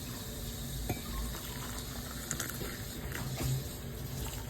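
Spiced red tea boiling in a pot on the stove, a steady bubbling hiss with a few faint light clicks.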